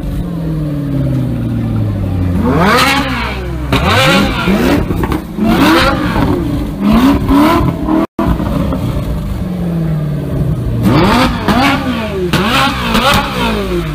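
A Ford GT's V8 and a Ferrari 458's V8 being revved in turn, in a string of quick throttle blips. The revs climb and drop about once a second, with one long fall back toward idle near the start and a fast run of high blips near the end.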